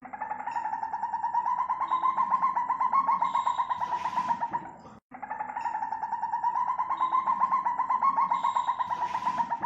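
African civet call: a long, rapid pulsing call, heard twice with a brief break about five seconds in.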